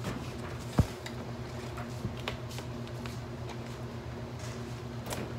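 Papers and hanging file folders being handled in a filing-cabinet drawer: scattered rustles and clicks, with one sharp knock about a second in, over a steady low hum.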